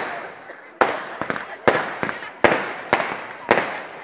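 Aerial fireworks bursting overhead: about six sharp bangs in quick succession, roughly one every half second, each fading out quickly before the next.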